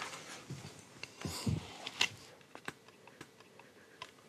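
Light plastic clicks and handling of a head-mounted magnifying visor as its lens is fitted and the visor is adjusted. There are a few separate sharp clicks, most of them in the second half.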